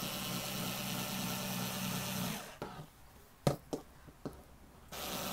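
Bosch IXO cordless screwdriver with its rotary cutter attachment, whirring steadily as it cuts through two layers of denim. The motor stops about two and a half seconds in, a few sharp knocks follow, and it starts whirring again near the end.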